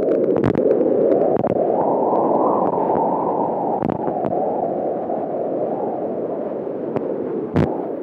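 Placental blood flow picked up by a BabyBeat fetal Doppler and played through its speaker: a steady rushing whoosh, often said to sound like the wind in the trees, swelling a little midway. A few sharp clicks sit on top, the clearest near the end.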